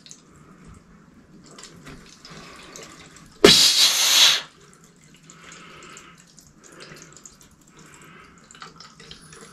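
Faint steady hiss of water running through newly charged PEX plumbing, broken about three and a half seconds in by one loud sneeze lasting about a second.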